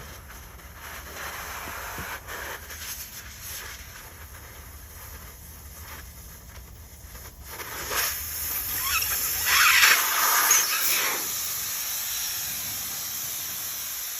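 Air hissing out of a truck tire's valve stem as the valve core is removed to deflate it, growing much louder about eight seconds in, then settling into a steady hiss.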